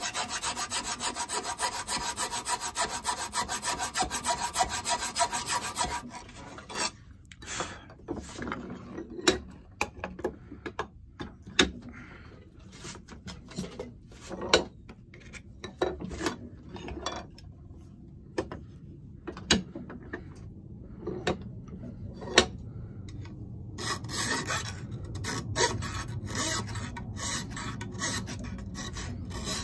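Flat steel file rasping in quick back-and-forth strokes on the cast-iron mouth of a bench plane, widening the mouth so a thicker Veritas replacement iron will fit. The filing stops about six seconds in and gives way to scattered knocks and clunks of the tool being handled, then picks up again for the last few seconds.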